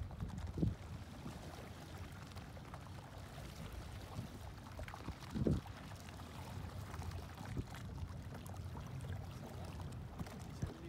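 Steady low rumble of a motorboat idling slowly in shallow water, with water sounds around it. Wind buffets the microphone twice, about half a second in and about halfway through.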